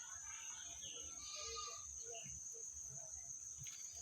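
Insects droning steadily at a high pitch, with faint scattered chirps over the top.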